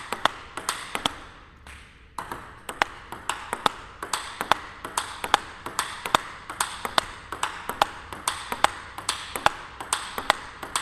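Table tennis rally of forehand drives: a plastic ball struck back and forth by rubber-faced rackets, one faced with the Nittaku Genextion rubber under test, and bouncing on the table. It makes a steady run of sharp clicks, a couple per second, with a short break about one and a half seconds in before play resumes.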